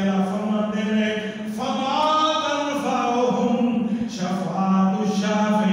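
A man's voice chanting in a melodic, sung style, with long held notes that bend in pitch, the preacher's sermon turned into chant.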